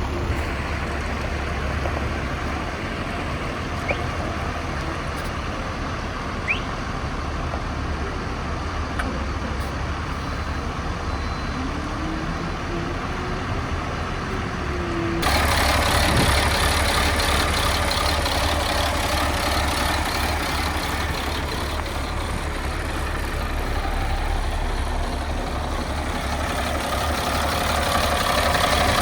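Diesel engine of a 2000 Blue Bird bus on a Freightliner chassis idling steadily with a low rumble. About halfway through, the sound suddenly becomes louder and harsher.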